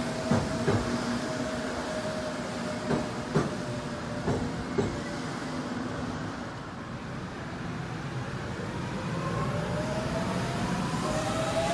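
Seoul Metro electric train pulling away: wheels knock over rail joints a few times while a steady inverter tone fades out. From about nine seconds in, another Seoul Metro train's VVVF inverter starts up as it accelerates, several whining tones climbing in pitch together.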